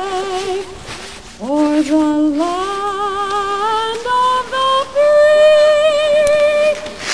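A woman singing solo, holding long notes with vibrato; after a brief break about a second in, the melody climbs in steps to a high held note. A sharp click comes right at the end.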